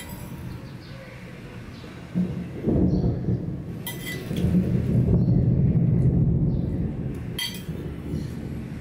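A steel serving spoon clinks against a ceramic rice bowl a few times as rice is scooped out, with a loud low rumble running for several seconds through the middle.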